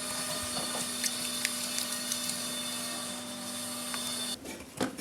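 A steady machine hum with a hiss and a few faint knocks, cutting off abruptly a little past four seconds in. After that there are quieter light taps.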